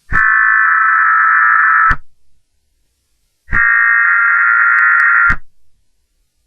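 Emergency Alert System SAME header tones: two loud bursts of buzzing digital data screech, each about two seconds long with a silence of about a second and a half between them, sent as an alert message begins.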